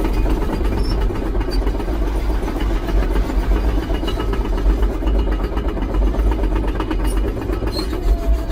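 A heavy construction machine's engine running steadily under a deep rumble, with a dense rattling clatter.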